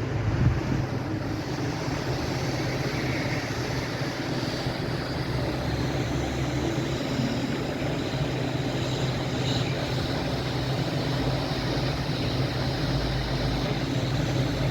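Steady rushing machine noise with a low hum, even and unbroken, like a running fan or blower.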